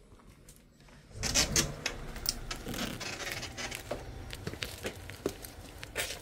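Quiet at first, then about a second in the sound jumps as a door opens to the outside: a steady outdoor background with footsteps, scuffs, rustles and clicks of a person and a leashed dog heading out, and of the phone being handled.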